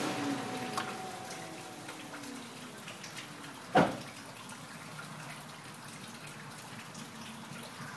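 Pickup truck just after its engine stops: a faint whine glides down in pitch over the first few seconds as something spins down. A single sharp knock comes about four seconds in, then light scattered ticks.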